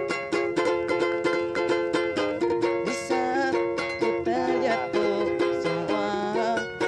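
Ukulele strummed in a steady rhythm, several chord strokes a second, with the chords changing now and then.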